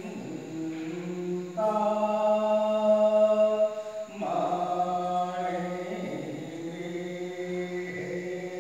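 Hindu devotional aarti chant, a voice singing long held notes; the loudest note is held from about two seconds in, breaks off near the middle, and the next phrase follows at once.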